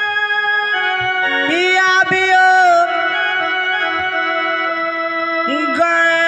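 Stage music: long, drawn-out sung notes from a woman at a microphone over sustained electronic keyboard organ, amplified through a PA.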